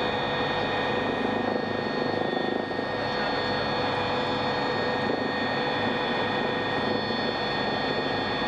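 Helicopter cabin noise heard from inside in flight: the steady rush and flutter of the rotor and engine, with a steady high whine over it.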